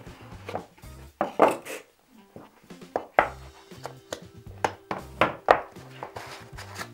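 Kraft-cardboard phone box being opened by hand: a string of short, sharp scrapes and rustles of cardboard as the lid slides off and the phone is lifted out of its cardboard tray, over quiet background music.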